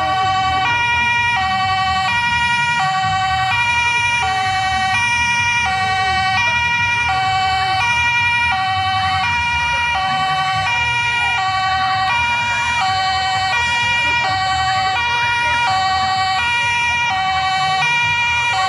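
Two-tone siren alternating steadily between a lower and a higher note, each held for about 0.7 seconds, over a crowd of children shouting.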